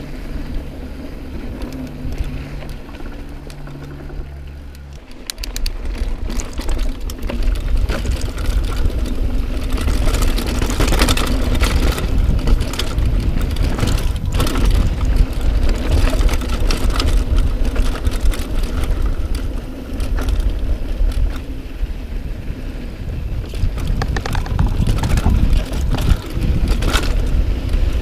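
Cannondale mountain bike ridden down rough dirt singletrack, heard from a bike- or helmet-mounted action camera: wind buffeting the microphone, tyres on the dirt and the bike rattling and clattering over rocks and bumps. Quieter for about the first five seconds, then loud and continuous.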